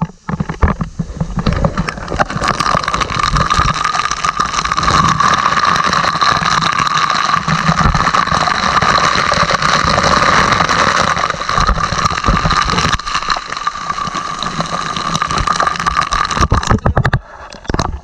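Heavy water spray pouring down and splashing onto a steel ship's deck, a loud steady rush with many small sharp knocks in it; it drops away near the end.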